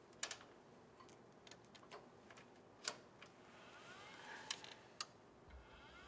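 Faint, separate sharp clicks as the panel's rotary power switch is turned to reapply power to a WEG CFW11 variable frequency drive. A faint rising whine starts about four seconds in as the drive powers up.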